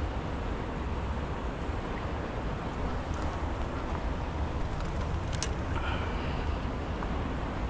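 Wind buffeting the microphone as a steady, fluctuating low rumble over the rush of flowing water. A brief sharp click sounds about five seconds in.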